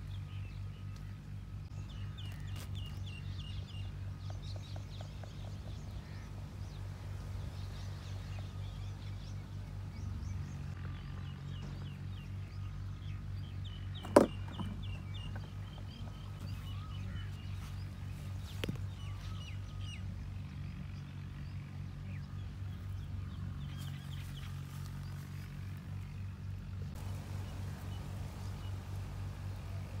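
A low, steady hum with small birds chirping in short runs several times, and one sharp click about fourteen seconds in.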